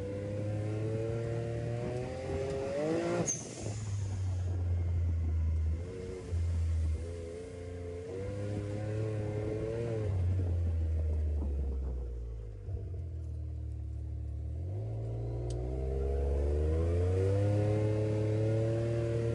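Can-Am Maverick X3 side-by-side's turbocharged three-cylinder engine, heard from the driver's seat while driving a dirt track. The engine note rises and falls with the throttle. About three seconds in it climbs and then drops off sharply, it winds down between about 12 and 15 seconds in, and then it climbs again.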